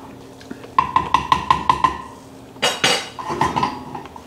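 A metal utensil tapping quickly on the rim of a cooking pan on the stove: about six fast ringing taps starting about a second in, a louder clatter near the middle, then a few more taps.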